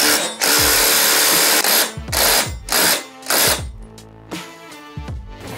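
Makita cordless impact driver with a socket running a wheel nut onto a go-kart axle: one long burst of about a second and a half, then three short bursts as the nut is snugged tight. Background music plays under it.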